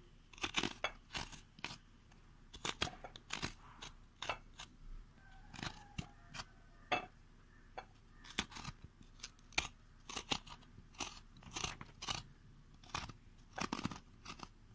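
Knife blade scraping the skin off a mango ginger root in short, irregular strokes.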